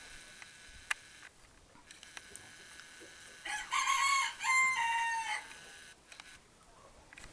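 A single drawn-out animal call lasting about two seconds, in the middle, in a few stepped segments.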